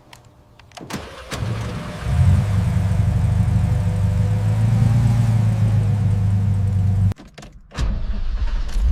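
A car engine starting about two seconds in, after a few sharp clicks, and running steadily for about five seconds before cutting off abruptly.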